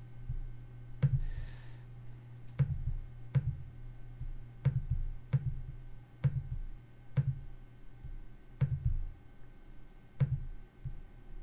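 Computer mouse clicks, about nine at uneven intervals of roughly one to one and a half seconds, each with a dull low knock.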